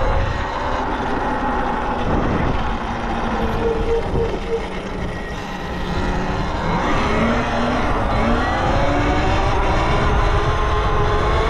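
Talaria Sting R electric dirt bike's motor whining, the whine climbing steadily in pitch over the second half as the bike accelerates, under heavy wind noise on the microphone.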